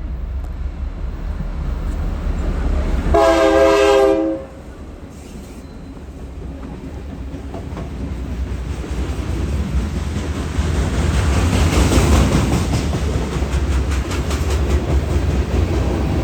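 Diesel locomotive air horn on K&O 4135 sounds one short chord of several tones a few seconds in, a horn salute, over the steady low rumble of the locomotives. The rumble and the clatter of wheels on the rail joints then build louder toward the middle as the three-locomotive train comes up and runs past.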